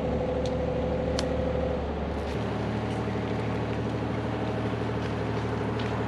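Compact excavator's engine running steadily, with a higher whine that fades out about two seconds in as the engine note shifts.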